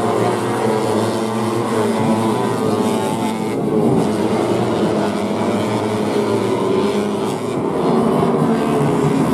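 Several race-tuned 150cc four-stroke underbone motorcycles racing through corners, their engines revving hard. The engine notes overlap and rise and fall in pitch as the riders roll off and get back on the throttle.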